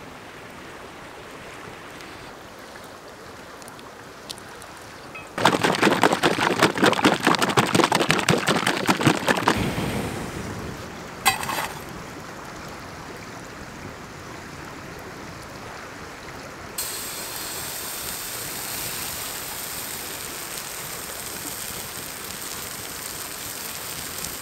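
Steady rush of a nearby river throughout. About five seconds in comes a loud, fast rattle lasting about four seconds, with a short one near eleven seconds. From about seventeen seconds a brighter steady hiss sets in, from the campfire under the pan.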